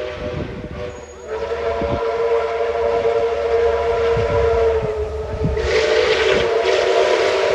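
Steam locomotive whistles blowing long and steady, breaking off briefly about a second in and then sounding on. From about five and a half seconds in, a loud hiss of steam and exhaust rises under the whistles as the locomotives draw nearer.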